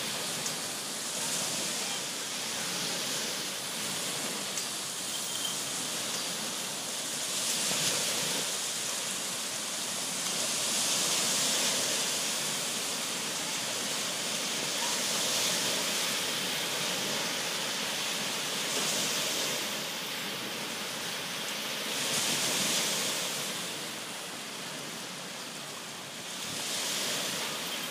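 Small lake waves breaking and washing onto a sandy shore: a steady rushing that swells and eases every few seconds.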